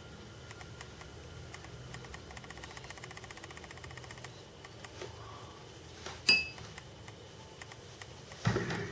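A wooden modelling tool working soft water-based clay, a faint rapid scratchy ticking. About six seconds in comes a single sharp clink with a short ring as a tool is set down, and a dull knock near the end.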